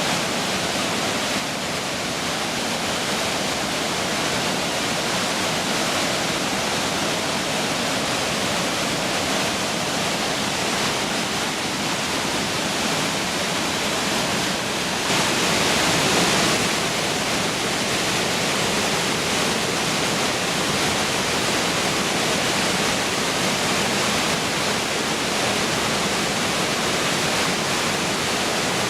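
Waterfall water rushing in a steady, dense roar. It grows louder and brighter for a second or two about halfway through.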